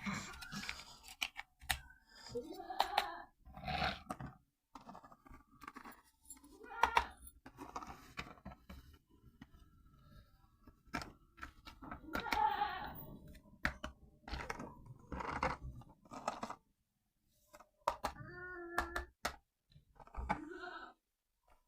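Unboxing a toy RC car: the cardboard box and plastic packaging are handled, cut and torn, in a string of irregular rustles, crinkles, taps and clicks.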